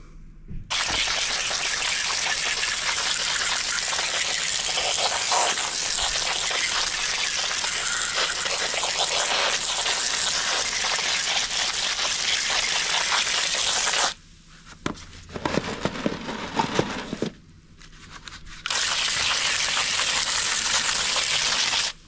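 Garden hose spraying a jet of water over freshly dug potatoes in a wire-mesh harvest basket, rinsing off the soil: a steady hissing spray that stops about 14 seconds in and starts again some four seconds later.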